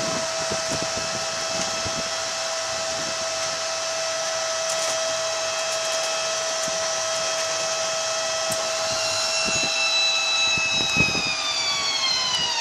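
Electric drive of a Citymobil2 automated shuttle whining steadily, heard from inside the cabin. Over the last few seconds the whine falls in pitch as the vehicle slows into a docking station. There is a knock about eleven seconds in.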